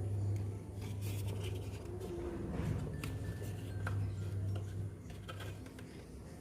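Rubbing and scratching noises with scattered light clicks over a steady low hum.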